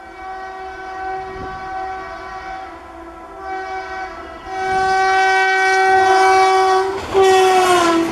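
WAP-7 electric locomotive's horn sounding a long blast, a short break, then a second, louder long blast as the train approaches. The pitch drops about seven seconds in as the locomotive passes close by, and the rush of the passing train begins at the very end.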